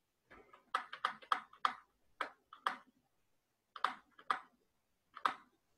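A run of about ten sharp clicks at a computer, the kind made by pressing keys or a mouse button: several in quick succession in the first two seconds, then single clicks spaced further apart.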